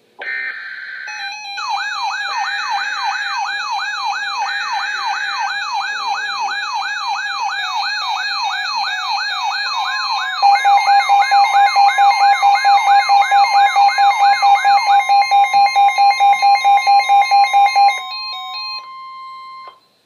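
Several NOAA weather radios going off together for a Severe Thunderstorm Warning. Short bursts of the alert's digital header come first, then the radios' alarms sound at once: a warbling siren sweep about twice a second, high beeps, and pulsing tones with a steady warning tone from about halfway. Most stop a couple of seconds before the end, leaving the steady tone briefly.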